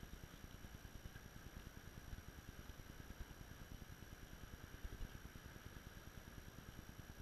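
Near silence: a faint low rumble with two thin, steady high-pitched tones, and one slightly louder low knock about five seconds in.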